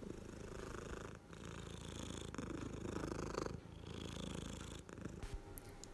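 Domestic cat purring very close to the microphone, swelling and easing with each breath about once a second.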